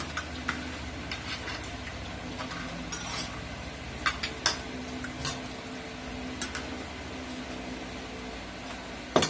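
Scattered clinks and taps of spoons and plates during a meal, a dozen or so short knocks, the loudest near the end, over a steady low hum.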